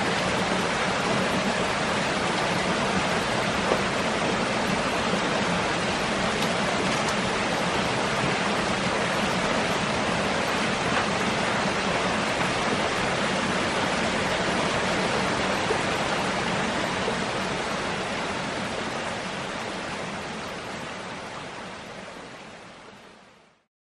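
Rushing stream water, a steady full hiss that fades out over the last six seconds or so to silence.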